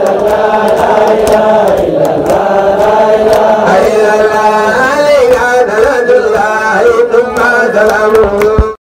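Male voices chanting Islamic dhikr, long sustained lines that bend in pitch, with a higher leading voice joining about halfway through; the chant cuts off abruptly at the very end.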